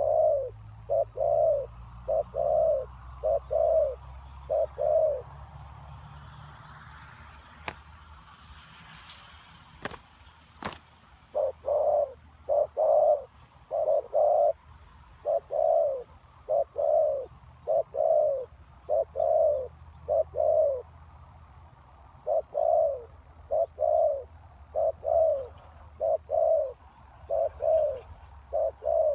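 Spotted dove cooing in repeated phrases of short, low coos. The calling stops for several seconds about a fifth of the way in, during which a few sharp clicks sound, then resumes.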